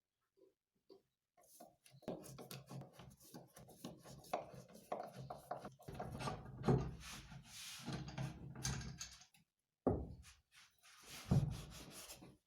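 Hand work on wood: a run of quick rubbing, rasping strokes for several seconds, then two short separate bursts near the end.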